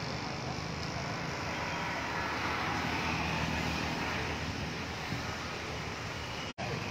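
Steady hum of street traffic with a low rumble and no distinct events. The sound drops out for an instant near the end.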